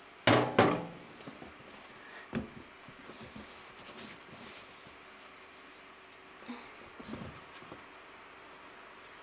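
Hands handling a wet, overnight-fermented French bread dough on a canvas cloth: a bump near the start, then soft scratchy patting and rustling as the dough is spread and folded.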